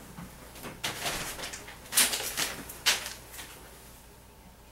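Large flip-chart paper sheets being handled and turned on an easel, giving a few sharp papery crackles about one, two and three seconds in.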